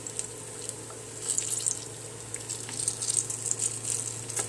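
Banana fritters deep-frying in hot oil: the oil sizzles with dense crackling that gets busier from about a second in, over a low steady hum.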